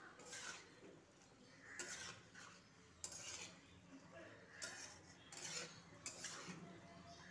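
Faint scraping and clinking of a cooking utensil against a metal kadai as penne pasta in thick sauce is stirred, in short strokes about once a second.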